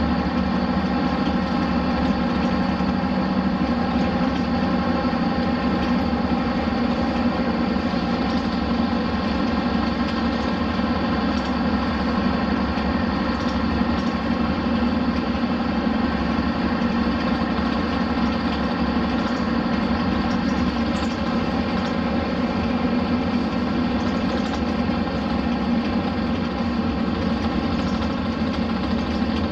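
Hino Blue Ribbon RC monocoque bus's diesel engine running at a steady, unchanging pitch.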